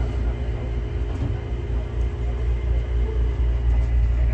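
Steady low hum inside a stopped Bombardier Innovia Metro 300 (ART Mark III) SkyTrain car, with a faint steady tone from its onboard equipment above the hum.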